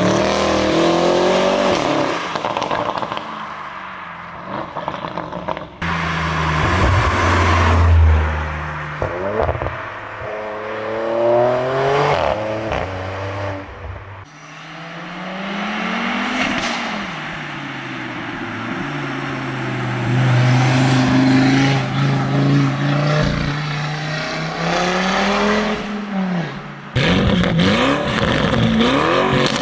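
Tuned Audi RS cars with aftermarket exhaust systems accelerating hard. Each engine note climbs and drops through repeated gear changes, with short sharp cracks from the exhaust, and a car drives past. The sound cuts abruptly from one car to another several times.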